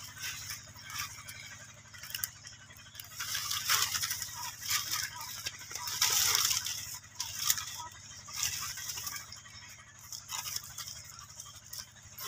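Dry banana leaves and trunk fibres rustling and crackling in irregular bursts as two young monkeys scuffle on them.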